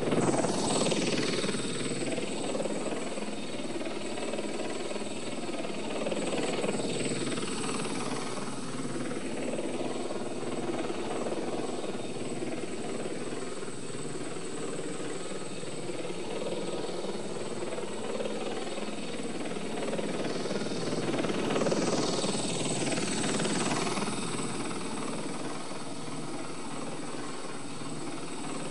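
Helicopter rotor and engine running continuously, rendered as virtual 3D sound that moves around and over the listener's head. It swells loudest, with a sweeping swish, right at the start and again about 22 seconds in.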